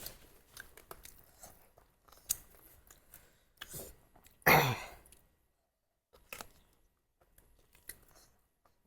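Eating sounds from a meal of duck curry: chewing with scattered mouth clicks and smacks. About four and a half seconds in comes one louder, half-second mouth or breath noise, and the sound drops out completely for about a second just after.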